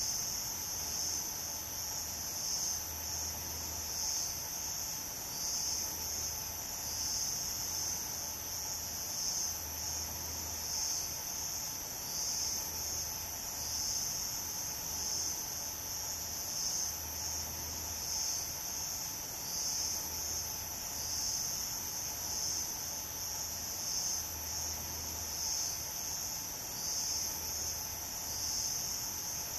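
Steady, high-pitched chorus of insects such as crickets or cicadas, shrilling continuously with a gentle pulsing.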